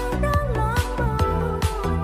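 Background music with a steady beat and a melody over it.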